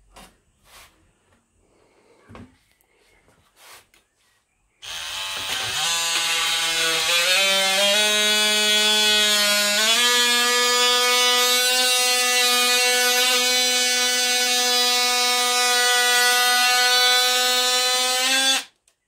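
DeWalt cordless oscillating multi-tool cutting into the plastic tank of a car radiator, starting about five seconds in after a few light clicks. Its pitched whine rises over the first few seconds, holds steady, and stops abruptly just before the end.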